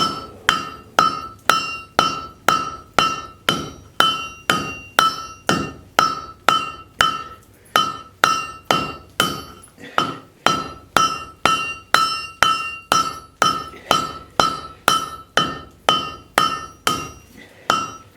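Blacksmith's hammer striking a hot railroad spike on the anvil in a steady rhythm of about two blows a second, each blow ringing briefly.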